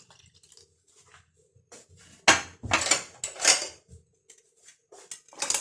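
Kitchen utensils clattering against a pot or bowl while pastry cream ingredients are combined. A cluster of sharp clinks and scrapes comes about two seconds in, and more comes near the end.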